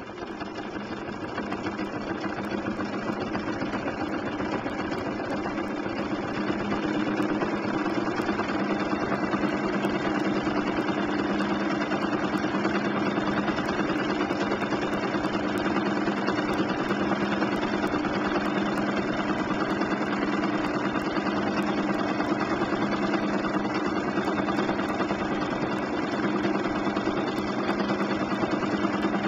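Bernina 1260 sewing machine running fast and steadily while free-motion quilting, the needle stitching rapidly. It picks up speed over the first several seconds, then holds a steady pace.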